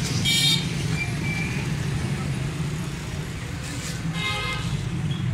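Steady low rumble of street traffic, with two short high-pitched tones, about half a second in and again about four seconds in.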